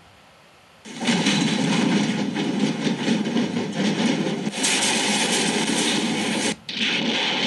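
Rumbling and rattling of the 2001 Nisqually earthquake shaking a building and its contents. It starts suddenly about a second in and drops out for a moment near the end.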